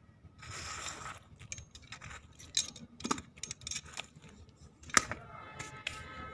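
Metal tongs scraping and clinking against hot coals and ash in a chulha, as embers are raked over multani mitti to roast it. Rustling scrapes with scattered sharp clinks, the loudest about five seconds in.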